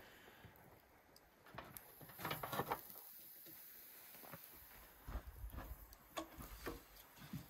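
Wire grill basket clinking and scraping as it is set down on a metal charcoal grill: a few light metallic knocks and rattles, the loudest cluster about two seconds in, and scattered ticks later.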